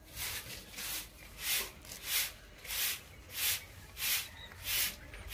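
Bottle gourd leaves being plucked from their stems by hand, each pluck a short rustling tear, repeating in a steady rhythm about three times every two seconds.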